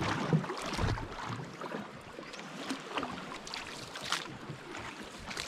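Water splashing and lapping around a small outrigger paddle canoe, with irregular short splashes over a steady wash of water.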